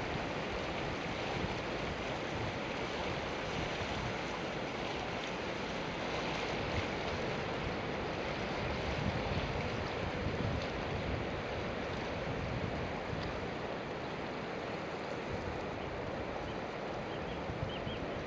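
Steady rushing of turbulent water as the Severn Bore tidal surge floods up the river, with wind rumbling on the microphone.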